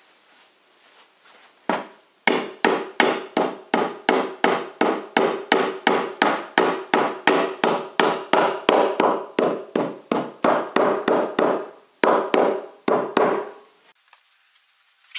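Rubber mallet tapping an IKEA Expedit particleboard shelf panel down onto wooden dowels. It strikes steadily about three times a second with a slight ring on each blow, pausing briefly once before a last few blows.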